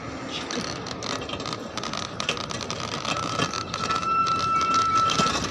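Bus and traffic noise in a bus terminal: a rough, steady rumble broken by short crackles, with a steady high-pitched whine that grows louder over the last two seconds and cuts off just before the end.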